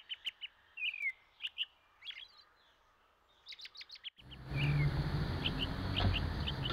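Small birds chirping in quick short calls, some sliding down in pitch. About four seconds in, a steady outdoor background noise with a low rumble rises underneath the calls.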